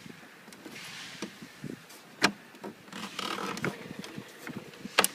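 Coffee machine side panel being pulled backward and off its mountings: handling clatter and scraping, with a sharp knock about two seconds in and another near the end.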